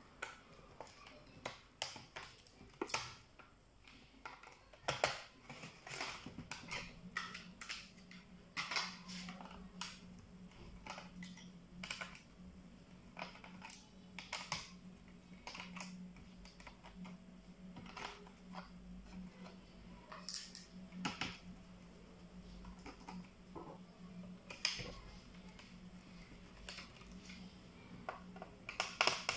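Small hand screwdriver working screws out of a laptop's plastic bottom case: irregular clicks and light taps of the tool, screws and fingers on the plastic. A faint steady low hum comes in about six seconds in.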